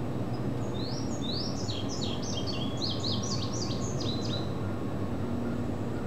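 Indigo bunting singing one song of quick, high, downslurred notes, many of them in pairs, lasting about four seconds, over a steady low background rumble.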